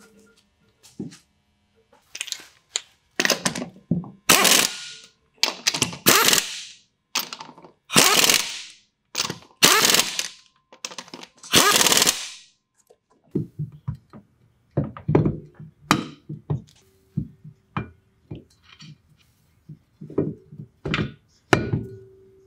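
Impact wrench running lug nuts onto a wheel in a dozen or so short bursts, each a quick rattling whirr. Then, about halfway through, irregular metal clinks and knocks as a driveshaft U-joint is seated into the rear axle's pinion yoke.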